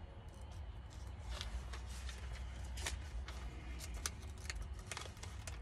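Thin Bible pages being leafed through: a run of soft paper flicks and rustles, over a steady low hum.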